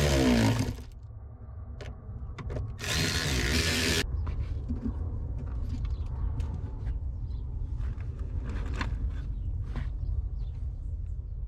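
A power tool spins down and stops, then runs again in one short burst about three seconds in, followed by scattered clicks and knocks of parts and tools being handled over a low steady rumble.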